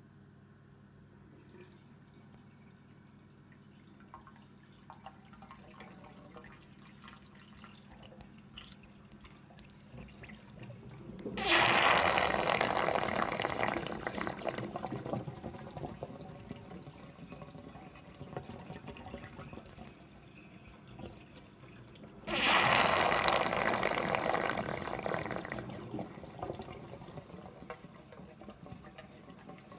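Bean Animal aquarium overflow recovering from a power loss: water trickling and dripping in the PVC standpipes of the overflow box, then two sudden loud rushes of gurgling water about ten seconds apart, each fading over a few seconds, as the drain cycles before settling to silent running.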